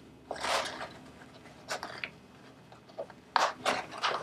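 A drysuit sleeve and a Santi cover ring rubbing and scraping against each other as the ring is worked over the Smart Seal wrist ring: a drawn-out rub about half a second in, a couple of faint scrapes, then three sharper rubs in quick succession near the end.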